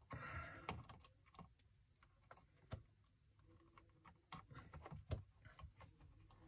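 Faint, irregular clicks and taps of wires being pushed into the terminals of an electronics project kit, with a few spaced-out ticks over near silence.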